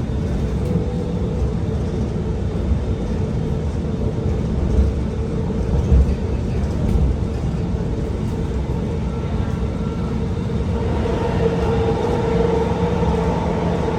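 Alstom R151 metro train running between stations, with a steady rumble and the whine of its SiC-VVVF traction motors. A higher whine joins about eleven seconds in.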